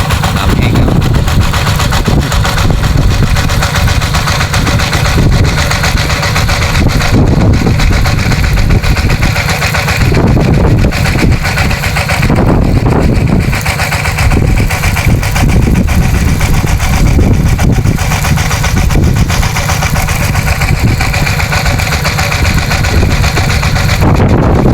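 Engine-driven water pump running steadily, pumping out a pond.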